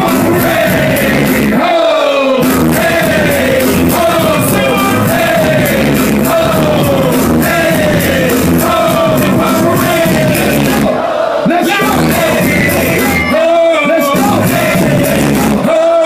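Live hip-hop performance over a loud outdoor PA: vocals in short, repeated falling phrases over a beat with heavy bass. The beat drops out briefly a few times.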